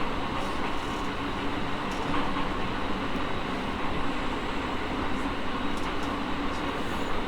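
Running noise inside a JR E217 series electric train car: a steady rumble of wheels on rail with an even hum from the traction motors and gears, holding one pitch.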